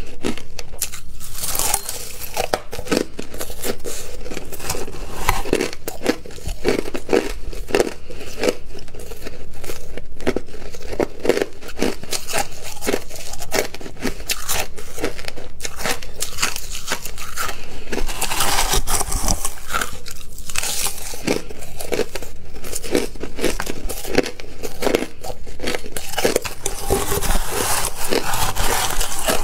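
Crushed ice being chewed close to the microphone: a dense, rapid run of crisp crunches. Near the end, a metal spoon scoops and scrapes crushed ice in a stainless steel bowl.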